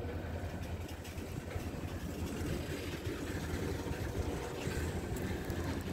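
A freight train of tank and box cars rolling slowly past at a crawl: a low, steady rumble.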